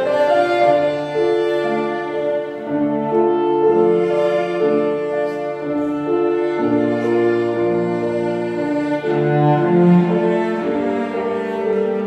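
Clarinet, cello and piano trio playing, with the cello's bowed notes prominent; long held notes that change about once a second.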